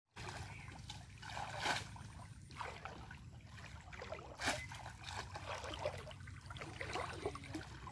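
Shallow water sloshing and splashing as a person wades knee-deep through it, with louder splashes a little under two seconds in and again around four and a half seconds.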